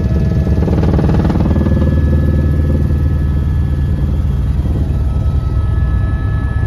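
Helicopter engine and rotors running steadily, a loud continuous low drone with a fast flutter in it.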